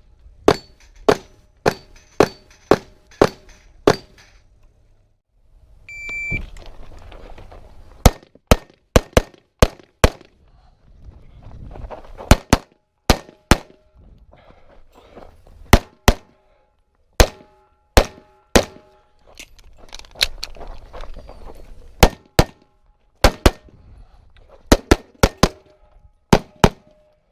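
Pistol shots fired in fast strings, many followed by the ringing of steel plate targets being hit. A short high electronic beep, like a shot timer's start signal, sounds about six seconds in, and the next string of shots begins about two seconds later.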